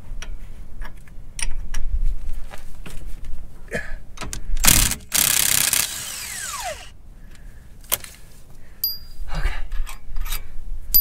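Cordless Milwaukee 18-volt impact wrench run in one burst of about two seconds on a bolt at the trailer's wheel hub, its motor whine falling as it winds down after the trigger is released. Metal clinks and clanks of tools and hardware come before it.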